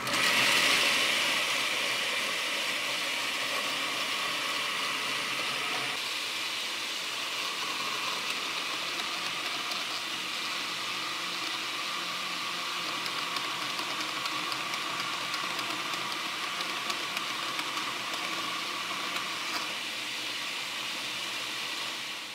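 Electric citrus juicer's motor starts abruptly and runs steadily, spinning the plastic reamer cone as halved oranges are pressed down on it, then cuts off at the end.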